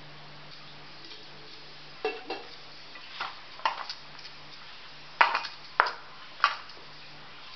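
Stainless steel bowl knocking and clinking as hands knead crumbly corn flour dough in it. About seven sharp separate knocks come from about two seconds in, the loudest near the end.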